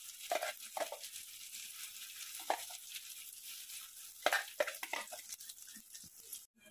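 Green-pea paste frying in oil in a wok, with a steady sizzle, while a spatula stirs it and scrapes the pan every so often, most busily a little after the middle. The paste is being sautéed dry to cook off its raw smell. The sound cuts out just before the end.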